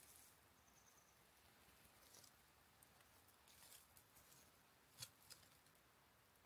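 Faint crackling and rustling of dry leaves and twigs as a cat paws and noses through dead brush, with a sharper crackle about five seconds in.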